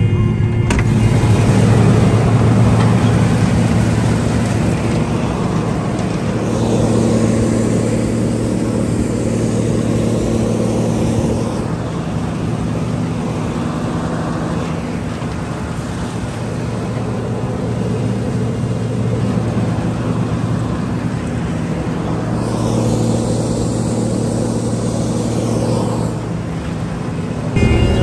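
John Deere combine running while harvesting soybeans: a steady engine and machinery drone with a low hum. It shifts abruptly in tone and level a few times.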